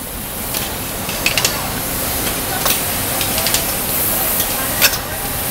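Automated engine assembly line machinery: a steady hiss of factory noise with scattered sharp clicks and clacks from the robotic cell.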